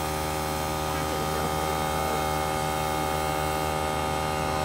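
Air compressor feeding an airbrush, running with a steady hum.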